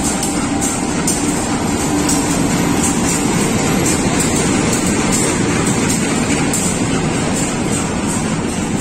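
Diesel-hauled passenger train pulling slowly into the station close by: the locomotive passes, then its carriages roll past with a steady rumble and regular wheel clicks about twice a second.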